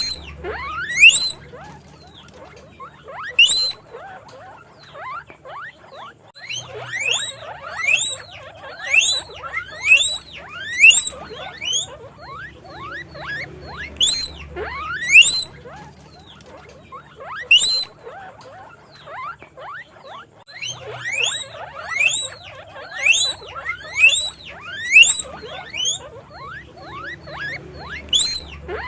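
Guinea pigs wheeking: loud, sharply rising squeals repeated in runs about a second apart, over a steady bed of fainter squeaks.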